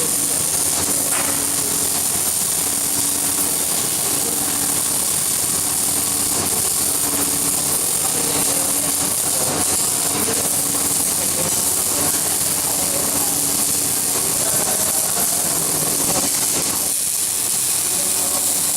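Electric arc welding: a steady hiss with a fine crackle from the arc, and a faint low hum that comes and goes.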